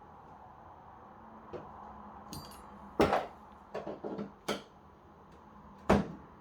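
A thin knife prising the plastic frame of an LG LED TV loose, with sharp plastic clicks and snaps as the frame gives: the loudest come about three seconds in and near the end, with a quick run of clicks around the four-second mark.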